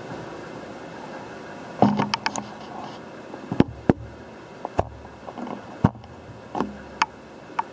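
Sun director of a Dobson ozone spectrophotometer being turned by hand through its flexible brass drive rod: a scattered run of sharp clicks and knocks, a few with a dull thud, starting about two seconds in. A steady low hum lies underneath.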